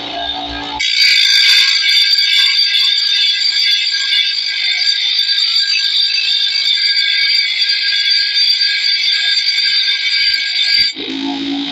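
Motorized grinding wheel grinding the edge of a long steel bolo blade: a steady, high-pitched grinding screech that starts about a second in and breaks off briefly near the end as the blade is lifted.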